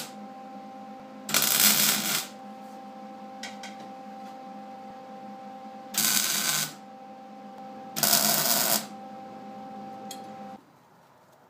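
Three short arc-welding tacks on steel tubing, each a crackling burst under a second long. A steady hum runs beneath them and stops near the end.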